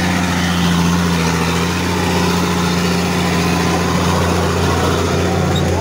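Heavy truck's diesel engine idling steadily, a low, even hum that holds one pitch with no revving.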